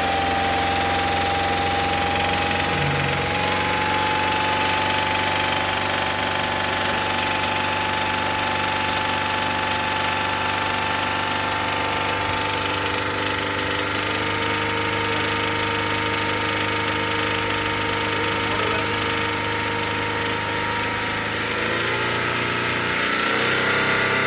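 2014 Subaru Forester's flat-four engine running steadily with a light knocking, which the mechanic calls piston slap, worst at cold start. The engine note rises briefly near the end, then drops back.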